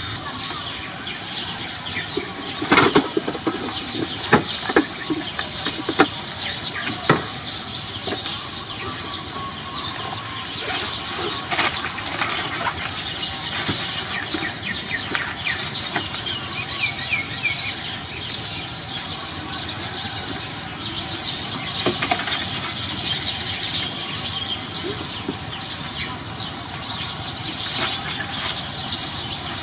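Irregular rustling with sharp clicks and knocks, most of them in the first dozen seconds, as a young macaque handles cake pieces and a plastic snack wrapper on wooden boards. A steady outdoor hiss lies underneath, with a few brief bird chirps around the middle.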